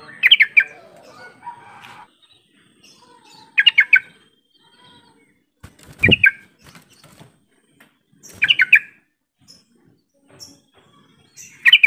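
Yellow-vented bulbul giving its call: five short, bubbly bursts of quick notes, about one every two and a half seconds, with a knock from the bird hopping on the perch near the middle.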